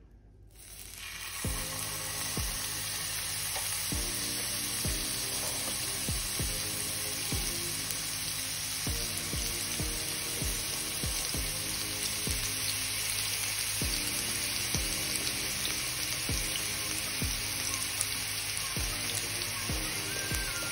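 Minced-meat kebabs sizzling as they are laid into hot oil in a frying pan. The sizzle starts about half a second in and then holds steady.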